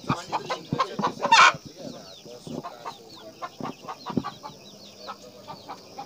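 Domestic chickens clucking in a farmyard: a run of short, quick calls, with one louder, harsh sound about a second and a half in.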